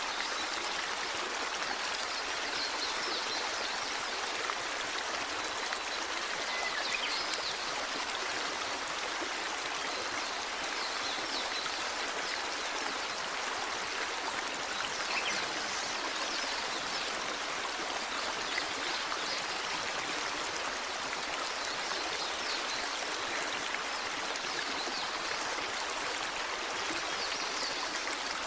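Small waterfall splashing and rushing steadily, an even, unbroken water sound.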